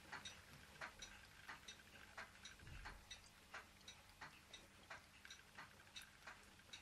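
Ross yoke low-temperature Stirling engine running slowly, its moving parts giving faint light clicks about two to three times a second, often in close pairs.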